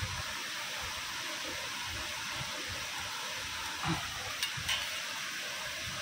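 Small waterfall pouring over rocks: a steady rushing hiss of falling water, with two light clinks of cutlery on metal plates about two-thirds of the way in.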